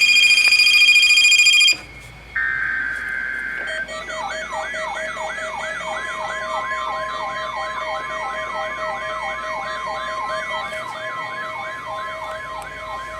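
Weather radio sounding the National Weather Service warning alarm tone test. A loud steady alarm tone cuts off about two seconds in. After a short beep, a rapidly repeating rising siren-like sweep, about three a second, sounds over a steady tone.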